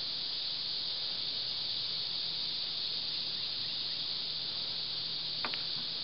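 Steady high-pitched hiss, with a faint low hum underneath and a brief faint tick about five and a half seconds in.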